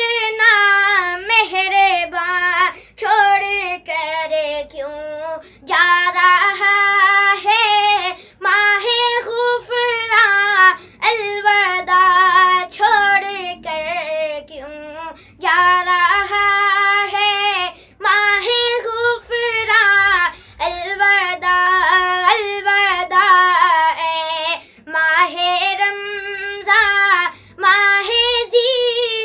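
A boy singing an Urdu naat, a farewell to the month of Ramadan, in long melodic phrases with short breaks for breath. No instrument is heard under the voice.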